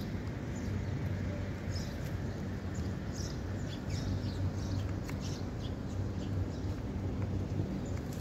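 Birds chirping repeatedly over a steady low rumble.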